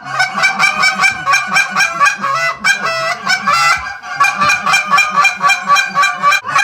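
Loud, rapid goose honking, several honks a second with overlapping voices.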